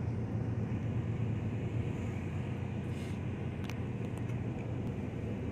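Steady low rumble of a car's engine and tyres, heard from inside the cabin while driving, with a faint tick or two about three and a half seconds in.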